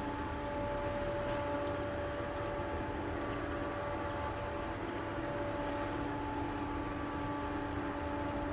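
Empty ethanol tank cars of a freight train rolling past at a steady pace: a continuous rolling noise of steel wheels on rail, with a few faint held tones over it.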